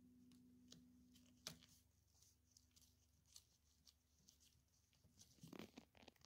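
Near silence, with faint clicks and rubbing as rubber-gloved fingers press a rubber seal onto a toilet bowl's plastic outlet spigot. There is one sharper click about a second and a half in and a brief burst of rubbing just before the end.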